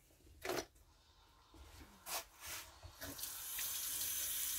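A kitchen tap is turned on about three seconds in, and water runs steadily into the sink to wet a tea towel.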